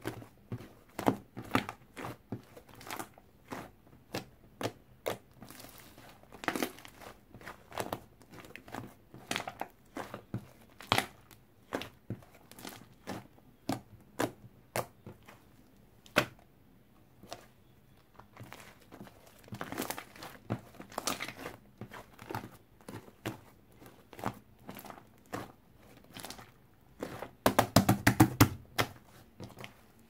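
Hands squeezing and kneading white fluffy shaving-foam slime, making irregular sharp crackles and pops as air pockets burst. A dense run of louder pops comes near the end.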